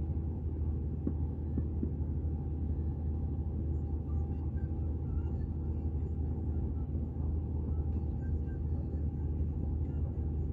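Steady low hum of a car's engine idling, heard from inside the cabin.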